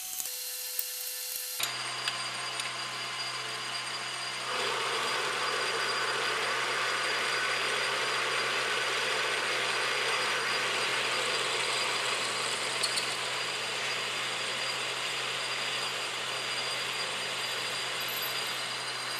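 Logan metal lathe running while a twist drill in a tailstock drill chuck bores into a spinning cast iron blank. About four and a half seconds in, the steady cutting noise of the drill grows louder as it bites into the iron.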